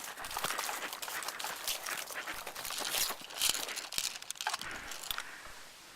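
Irregular crunching footsteps through dry leaves and brush, stopping about five seconds in.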